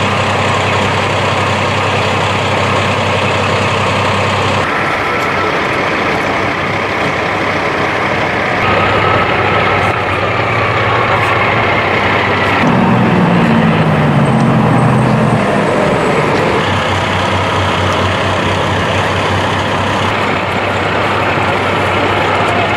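Emergency vehicles idling, including a fire rescue truck: a loud, steady engine hum under a constant noisy wash. The sound changes abruptly about every four seconds.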